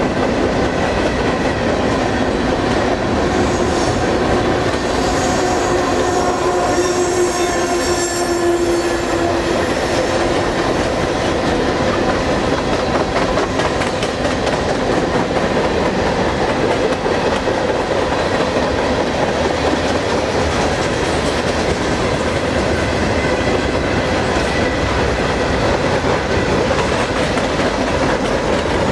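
Freight cars of a long mixed freight train rolling past close by: a steady, loud noise of steel wheels on rail. For a few seconds early on, some wheels squeal with a few held tones.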